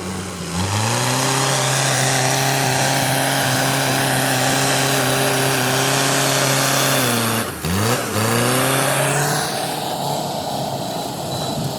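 Backhoe loader's diesel engine revving up and holding high, steady revs under load, dipping sharply and picking up again about two-thirds of the way through, then easing off near the end.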